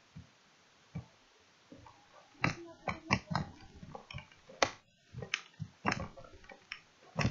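Handling noise from a handheld camera: irregular knocks, clicks and rubbing on the microphone as it is moved about against clothing. The first couple of seconds are almost quiet, and the knocks come thick and fast from about two and a half seconds in.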